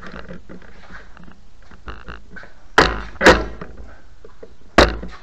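Three dull thumps: two about half a second apart, then a third about a second and a half later, with faint clicks and scuffs between.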